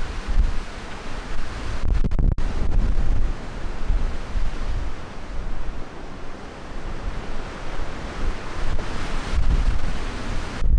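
Storm wind buffeting the camera microphone: a steady rushing noise with a heavy low rumble that surges with the gusts.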